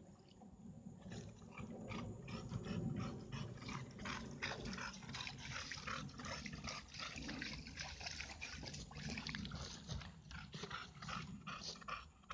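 Dog sounds, with many short ticking sounds in quick irregular succession.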